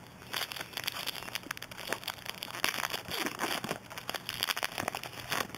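Baseball card pack wrapper being torn open and crinkled by hand: a dense, irregular run of crackles and rustles.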